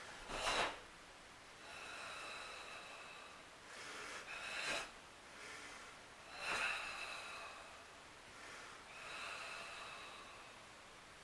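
A karateka's forceful, controlled kata breathing: three short, sharp, loud breaths, with long hissing breaths between them that carry a faint whistle.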